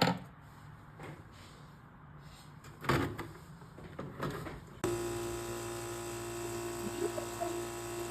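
A couple of knocks, like a cabinet door or fittings being handled. About five seconds in, the seven-stage water filter's pump switches on suddenly and runs with a steady electric hum made of several fixed tones.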